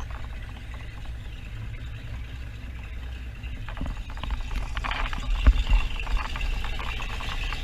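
Powerboat engine running low and steady, with a few sharp knocks about five seconds in.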